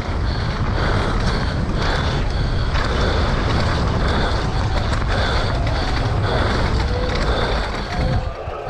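Mountain bike ridden fast down a muddy enduro trail: wind rushing over the camera microphone, with the tyres and frame rattling and knocking steadily over the rough ground. It eases off near the end.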